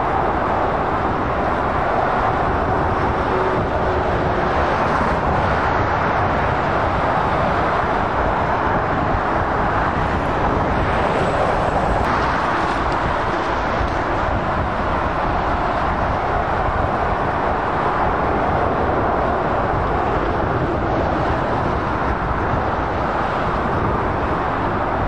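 Steady, unbroken noise of motorway traffic: tyre noise and engines of lorries and cars passing on the carriageways.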